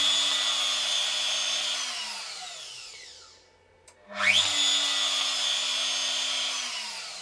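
DeWalt DWP611 compact router on a desktop CNC, switched by the CNC controller through a newly wired solid-state relay: its motor runs at a steady high whine, is cut off after about two seconds and winds down with falling pitch. About four seconds in it starts again, spins up quickly, runs about two seconds and winds down again near the end. This shows the relay switching the router on and off as intended.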